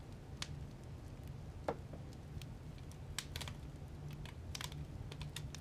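Light, irregular clicks and taps over a low steady hum.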